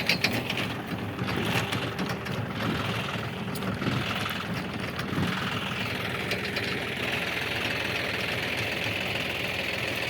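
Tractor engine running steadily while working a potato harvester, with a few rattling clicks in the first second.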